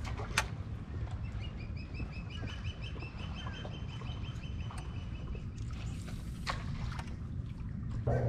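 A bird calling in a rapid run of short, evenly repeated high notes through the middle few seconds. Underneath is a steady low rumble, with a few sharp clicks, the loudest about half a second in.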